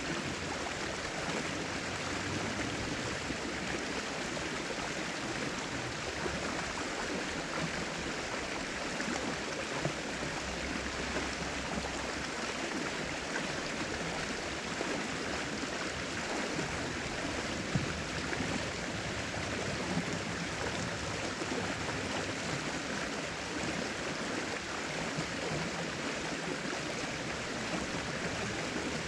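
River water flowing: a steady, even rush, with a few brief clicks.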